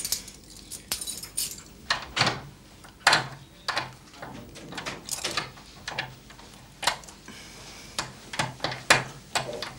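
Irregular metallic clicks and scrapes of hands working at a window catch, prying and fiddling at the latch.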